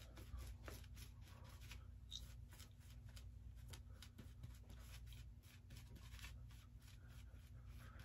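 Faint crisp scraping of a stainless steel open-comb safety razor cutting through lathered stubble, in many short strokes.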